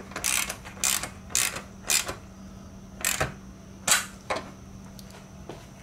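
Ratcheting wrench clicking as it tightens a nut onto the bolt of a Z mounting bracket on a solar panel's aluminium frame: a run of sharp clicks about two a second, then a few more farther apart.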